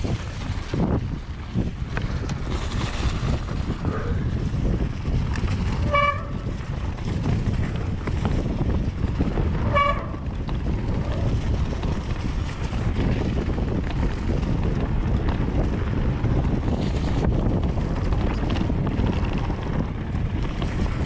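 Mountain bike rolling down a forest trail: steady rumble of tyres over dirt and roots with wind on the microphone. Twice, about six and ten seconds in, a short high pitched tone sounds.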